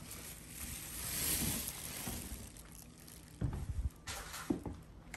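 Rustling and sliding of foam and cardboard packing material as it is moved, swelling and fading over about three seconds, then a few light knocks.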